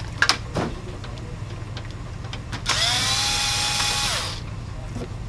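Handheld cordless electric screwdriver running for about a second and a half, its motor whine rising quickly to a steady pitch and then winding down. Light clicks and taps of plastic parts being handled come before it.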